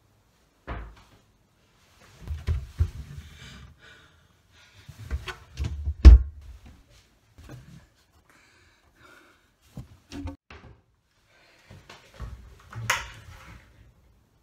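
Kitchen cupboard doors being opened and shut in several bursts of knocks, thuds and rattles, with the loudest bang about six seconds in.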